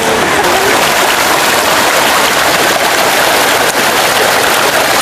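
A steady rushing hiss of water: spring water pouring from stone spouts into a bathing pool, with rain falling on the water.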